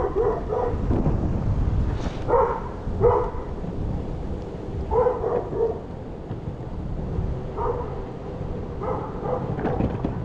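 Wind rumbling on the microphone while riding an electric skateboard, its hub motors silent. Short barks in twos and threes, like a dog's, come over the rumble several times.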